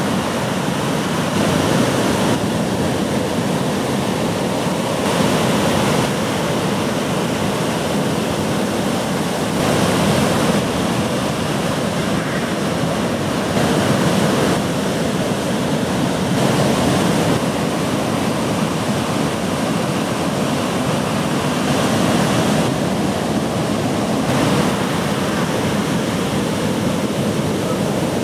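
Ocean surf breaking and washing: a steady rush of whitewater that shifts slightly in loudness every few seconds.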